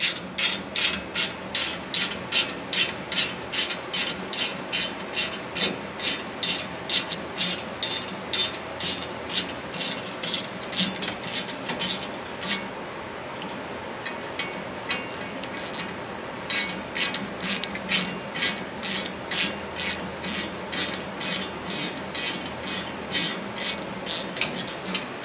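Hand ratchet driver's pawl clicking in an even run, about two to three clicks a second, as a bolt is tightened. The clicking stops for a few seconds about halfway through, then starts again.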